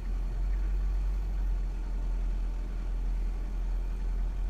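Steady low engine rumble at idle, heard from inside a car's cabin.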